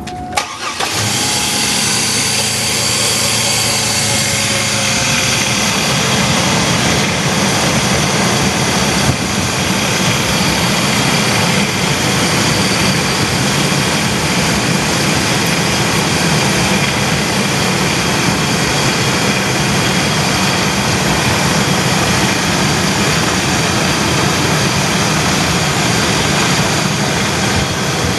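Chevy Astro van engine starting up about half a second in, then running at a steady idle during a combustion-leak block test for a head gasket leak.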